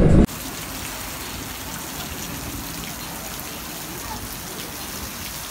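Steady rain falling, an even hiss. It cuts in suddenly about a quarter second in, replacing a louder low rumble.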